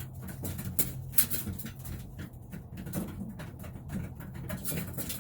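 Pigeons pecking at feed, an irregular patter of sharp ticks several times a second, over a low steady hum.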